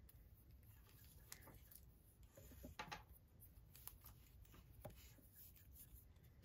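Faint handling sounds of a leather purse strap being worked through its metal buckle: soft rustles and a few light clicks of the hardware, over near-silent room tone.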